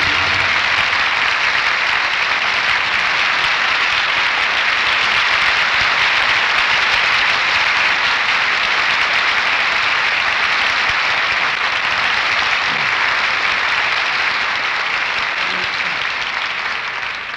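Studio audience applauding steadily at the close of a 1940 radio play, fading out near the end.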